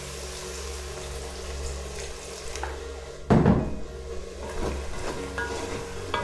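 Hot water poured from an electric kettle into a pot of simmering goulash, with a loud surge of splashing about three seconds in. A wooden spoon then stirs the pot. Soft background music runs underneath.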